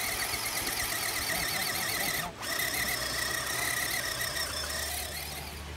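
Electric motor and gearbox of an RC scale crawler whining under throttle as it works through deep mud. The whine wavers, drops out briefly about two seconds in, then picks up again and fades near the end.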